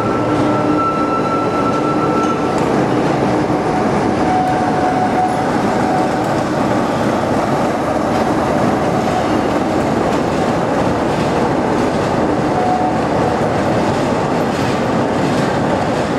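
Diesel-hauled train in motion on the line, a steady loud running noise of wheels on rail and engine, with a faint brief whine of wheel squeal now and then.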